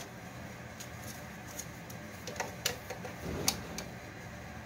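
Light clicks and knocks from handling a clamped wooden bench frame and a tape measure on a workbench, about half a dozen scattered through, the sharpest about three and a half seconds in, over a steady low hum.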